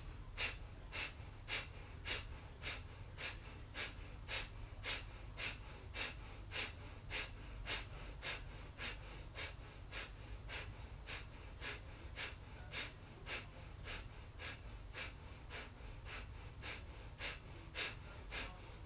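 A woman breathing out sharply through the nose again and again, about two short exhalations a second, each one driven by pulling the belly in, with the inhalations left passive. This is a rapid, rhythmic breathing exercise.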